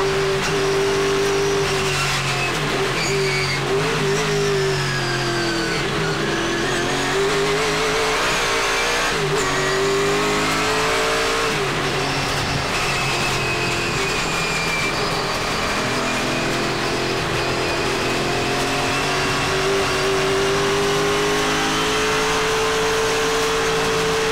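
Race car's 377-cubic-inch Chevrolet small-block V8 (about 600 hp) running hard, heard from inside the cabin. Its pitch falls and rises several times in the first half as the driver lifts and gets back on the throttle through corners, then climbs steadily in a long pull near the end.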